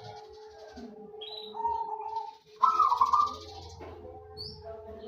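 Zebra dove (perkutut) cooing: a softer phrase about a second and a half in, then a louder one near the middle, with a few short high chirps between.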